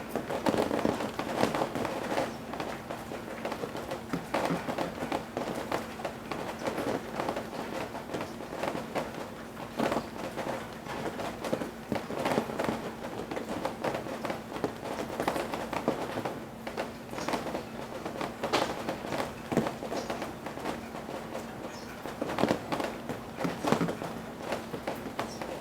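Rain dripping and pattering from roof eaves as the rain eases, heard as many irregular drops and splats over a soft patter. A faint steady hum runs underneath.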